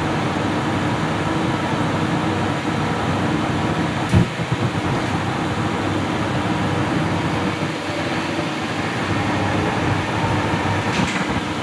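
Steady, loud machine-like hum and rush, with a single knock about four seconds in.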